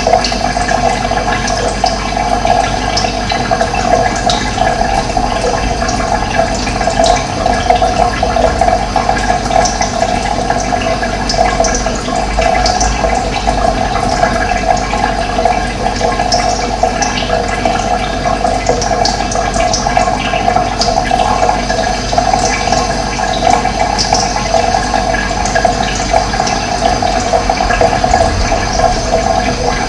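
Running water, a steady, even rush.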